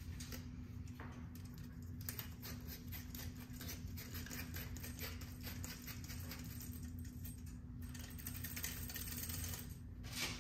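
Rapid small clicks and ticks from a light bulb being screwed into a metal lamp socket, with fingernails tapping on the bulb and socket. A steady low hum runs underneath, and one sharper click comes near the end.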